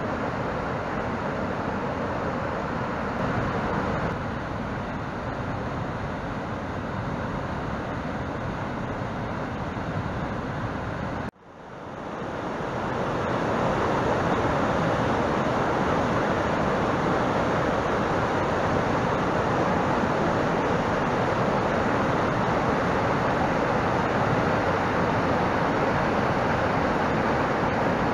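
Rushing white water of a rocky mountain stream, a steady roar of rapids pouring between boulders. About eleven seconds in it cuts out briefly, then fades back in a little louder.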